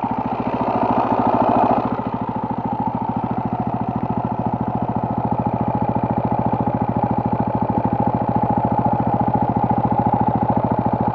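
Two-stroke moped engine idling with a fast, even pulse, briefly louder in the first two seconds.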